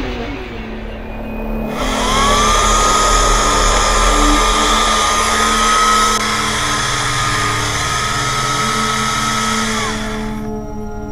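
Worx electric chainsaw spinning up with a quickly rising whine about two seconds in. It runs steadily at full speed while cutting into a fallen tree trunk, then winds down shortly before the end.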